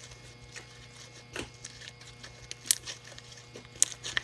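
Fluffy shaving-cream slime being stirred and squished by hand, with a few short sticky clicks at irregular moments over a steady low hum.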